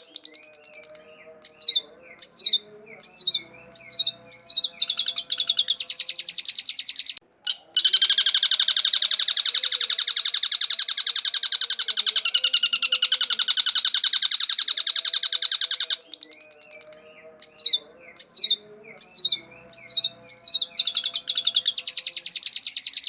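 Long-tailed shrike singing loudly in a fast, harsh, buzzing chatter. Short broken phrases give way to a long unbroken stretch, and then the same sequence repeats.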